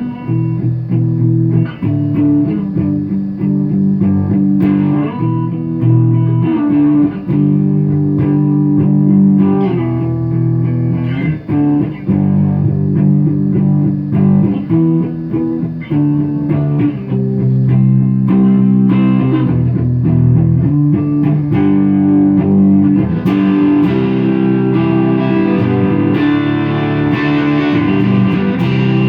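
Electric guitar with DiMarzio pickups, played through a small tube amp: sustained chords and single notes ringing out in a fairly clean tone. The tone grows brighter and fuller about 23 seconds in.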